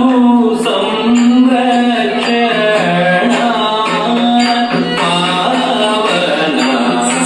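Carnatic-style dance song: a voice singing a melodic line over percussion and a steady low tone.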